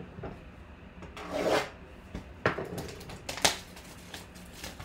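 Cardboard trading-card box handled and opened by hand. A scraping rub of cardboard swells a little over a second in, followed by several sharp snaps and clicks of the packaging.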